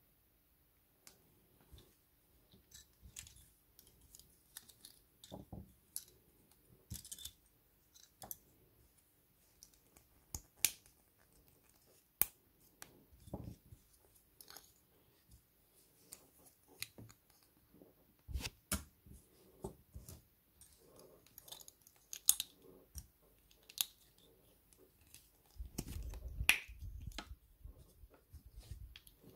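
Small hard-plastic Playmobil figure parts being handled, fitted together and set down: scattered, irregular clicks and taps with light handling noise, a few sharper clicks standing out.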